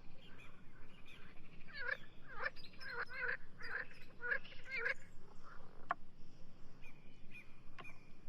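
Wild birds calling in a quick run of short, repeated pitched calls, with two sharp clicks later on.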